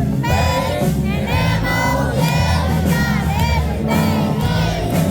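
Live country band playing loudly, with many voices from the crowd singing along.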